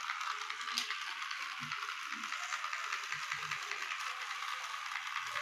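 Small electric motor and plastic gears of a toy train locomotive running on its track: a steady whir with fast, even clicking.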